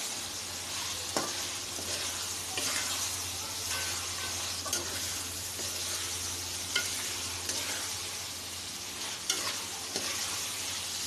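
Wild bitter gourds sizzling as they are stir-fried in onion-tomato masala, with a steady hiss of frying and a few sharp clicks as the pot is stirred.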